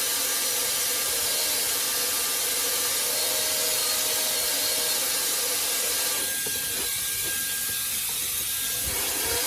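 Brushless-motor hair dryer running at its third, highest speed: a steady rush of blown air with a faint motor whine. About six seconds in, the sound thins out for a few seconds.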